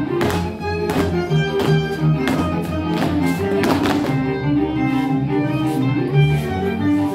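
Folk dance music: a fiddle playing the tune over bowed bass notes, at a lively steady beat. Thumps and claps from the dancers land on the beat.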